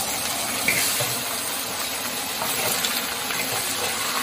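Stewed beef rib pieces sizzling steadily as they are tipped into a hot wok to stir-fry, with a few light clinks of a ladle scraping against a stainless steel bowl.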